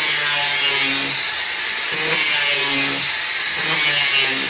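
Handheld angle grinder running steadily with a high whine, its disc grinding along the edge of a thin wooden strip.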